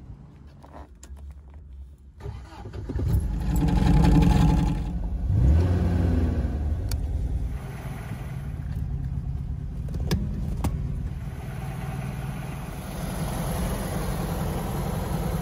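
1973 MGB's 1.8-litre four-cylinder engine catching about two seconds in, revving up a couple of times, then running steadily at idle. A few sharp clicks sound over it.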